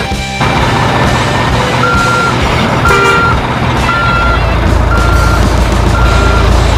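Truck reversing alarm beeping about once a second, each beep a short steady high tone, over a steady engine rumble. The beeping starts about two seconds in.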